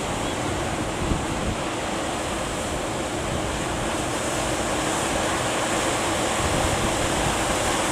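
Waves breaking and rushing in a steady wash of surf at a river mouth, with wind buffeting the microphone.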